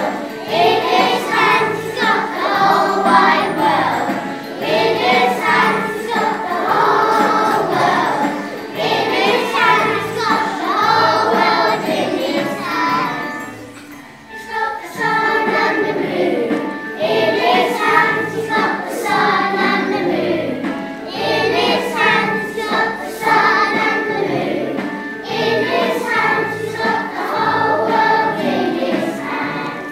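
A children's choir singing a hymn together with musical accompaniment. The singing dips briefly about halfway through, between phrases.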